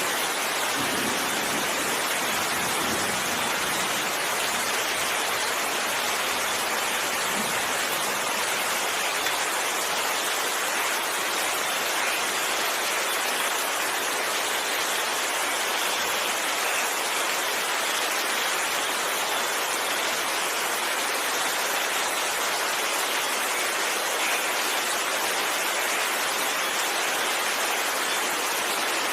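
Steady, even heavy rainfall, a continuous hiss of rain with no breaks.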